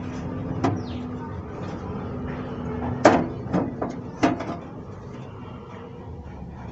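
Knocks and clatter of a desktop PC cabinet's side panel being handled and taken off: four sharp knocks, the loudest about three seconds in, then two more within the next second and a half.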